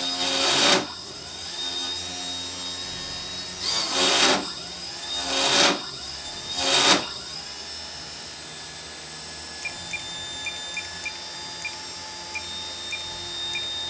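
Race-quad brushless motor spinning a 3D-printed 120 mm fan at about 5,000–5,500 RPM, a steady high whine over rushing air, the speed where vibration problems set in. Four loud swells of rushing noise come in the first seven seconds, and faint irregular ticks follow near the end.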